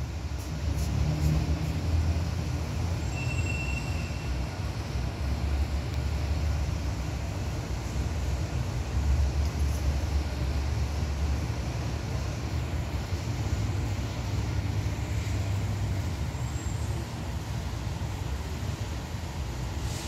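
Low, steady engine rumble of a fire engine driving off along the street.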